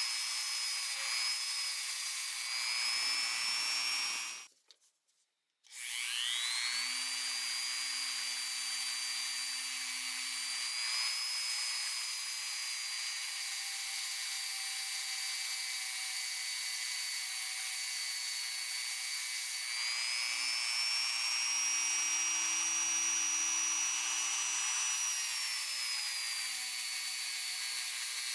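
Small high-speed rotary tool running with a high whine, its spinning abrasive wheel rubbing on metal. About four seconds in it switches off for about a second, then spins back up. Its pitch dips and rises as the load on the wheel changes.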